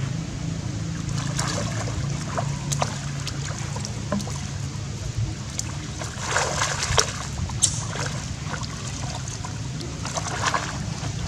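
Water splashing and sloshing in bursts as monkeys swim and wrestle in a shallow muddy pond, loudest about six to seven seconds in and again near the end, over a steady low hum.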